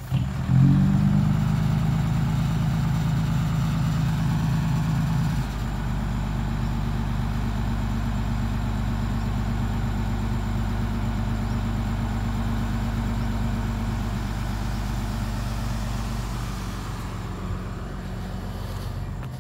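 Hino dump truck's diesel engine running steadily as it backs in and raises its tipper bed to dump soil. The engine note shifts down about five seconds in, and the sound fades near the end.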